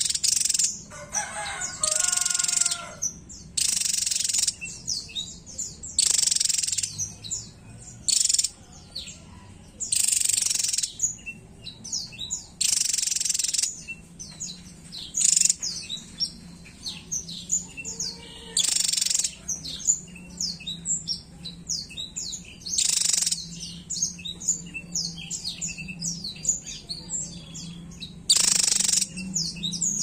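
Javan tesia singing: loud, harsh, rapid-fire song bursts about a second long every few seconds, with quick high chips in between.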